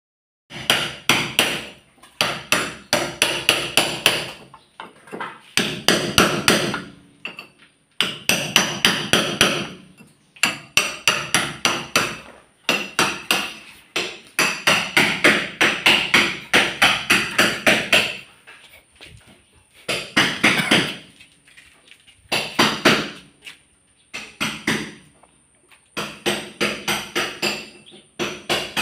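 Hand hammer striking repeatedly in quick runs of about four blows a second, with short pauses between runs and a ringing tone on each blow.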